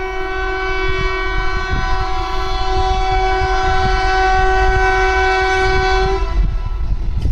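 Indian Railways express locomotive sounding one long horn blast that stops about six seconds in, over the rumble and rhythmic wheel clicks of the train passing at speed.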